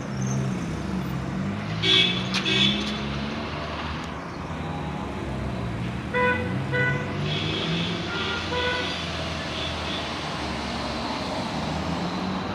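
Road traffic with a vehicle engine running throughout and car horns tooting: two loud short blasts about two seconds in, two short beeps around six seconds and one more near eight and a half seconds.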